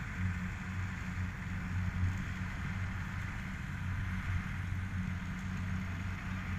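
Kubota DC-70 rice combine harvester running steadily while harvesting, a continuous low engine drone.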